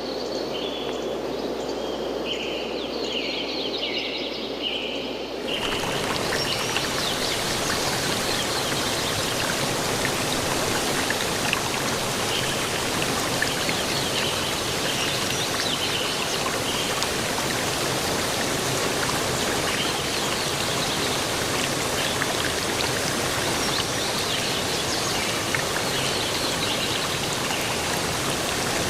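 Birds chirping in short repeated notes, then, about five seconds in, a steady wash of running water or rain comes in and carries on, with birds still chirping over it.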